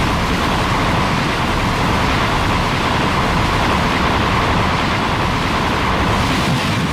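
A steady, loud rushing noise over a deep rumble, one unbroken monster sound effect, with no change in pitch.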